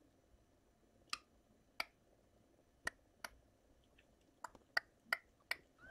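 About eight short, sharp clicks at irregular intervals over a quiet background.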